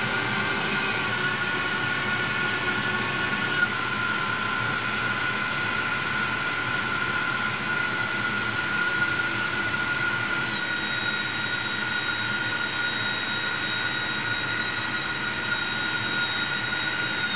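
Schubeler 93mm HST carbon-fibre electric ducted fan running at high power: a steady high-pitched whine over rushing air, its pitch dropping in small steps about a second in, near four seconds in and about ten seconds in as the fan speed is stepped down.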